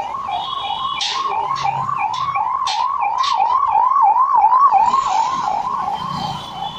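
Emergency vehicle siren wailing rapidly up and down, about three sweeps a second, growing louder toward the middle and fading near the end as it passes.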